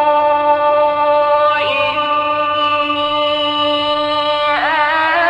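A male Quran reciter's voice in slow, melodic recitation, holding one long drawn-out note. The pitch steps down about a second and a half in, and near the end the voice bends into a quick wavering melodic turn.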